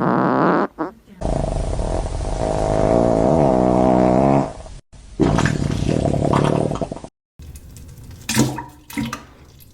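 Fart sound effects cut together with hard edits. A long rumbling fart runs from about a second in, its pitch falling near its end, and a second fart follows after a short gap. Near the end come a few short, sharp sounds.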